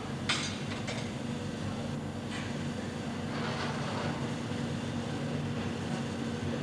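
Steady low mechanical hum of heat-treatment shop plant at the salt-bath tanks, with a few brief scraping noises as the bath gear is handled.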